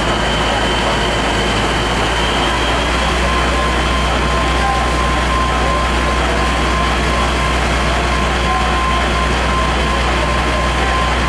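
Fire engine's engine running steadily at the scene, a loud, unbroken low rumble with a faint steady whine over it.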